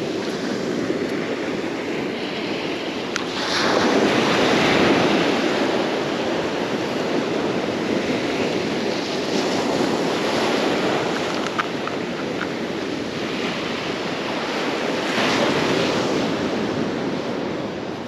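Ocean surf washing steadily onto a beach, with a louder wave a few seconds in and another near the end, and wind buffeting the microphone.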